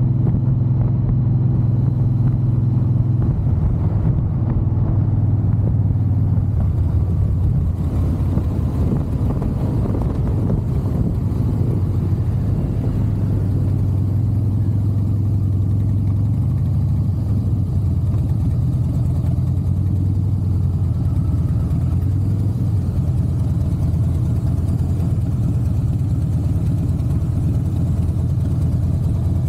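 Harley-Davidson Softail Heritage Classic's V-twin engine running steadily through its exhaust. Its low note drops and rises a few times as the throttle changes.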